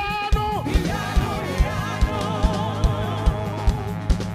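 Live gospel band playing: a singer holds a long note with vibrato over a steady kick-drum beat of about two and a half beats a second and a sustained low bass note.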